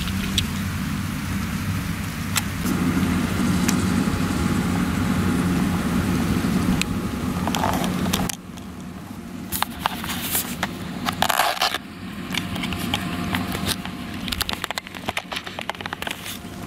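Claas Lexion 760 combine harvester with a corn header running at working speed, a steady low engine hum. About eight seconds in the sound drops away. The machine goes on more faintly under a dense dry crackling and snapping.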